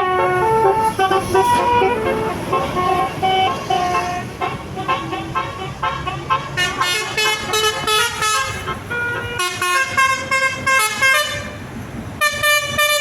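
Telolet basuri musical bus horn playing a quick melody of many short notes, stepping up and down in pitch, with a bus engine running underneath. The horn sounds brighter from about halfway and again near the end.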